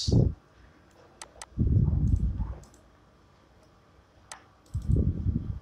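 A few sharp computer mouse clicks, two of them close together a little past a second in and another past four seconds. Two low, muffled noises about a second long, louder than the clicks, come about a second and a half in and near the end.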